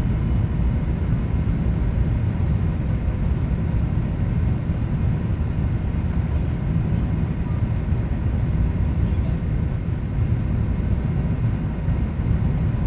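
Steady jet engine and airflow noise heard inside the cabin of a Boeing 777 in the climb after takeoff: an unbroken low rumble with no changes.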